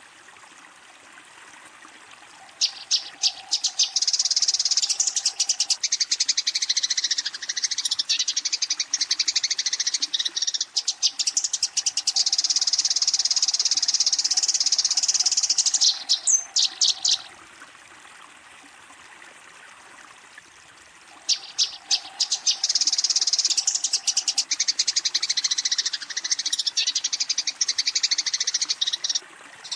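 Eurasian tree sparrow giving its rapid, excited fighting call, the call used to challenge a rival. It comes in two long bouts of fast chirping, each opening with a few separate chirps, with a pause of a few seconds between.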